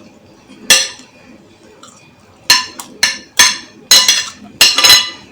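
Cutlery clinking against a dish: one sharp ringing clink about a second in, then a quick run of about seven clinks near the end.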